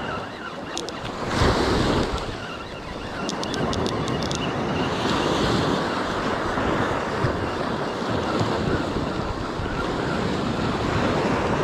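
Small waves breaking and washing up a sand beach, a steady rushing surf with one louder wash about a second in, and wind buffeting the microphone. A few short runs of light ticks come through about a second in and again around three to four seconds in.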